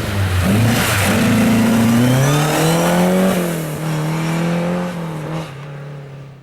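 Rally car engine accelerating hard, its pitch rising for a couple of seconds, then dropping and holding steady. The sound cuts off suddenly at the end.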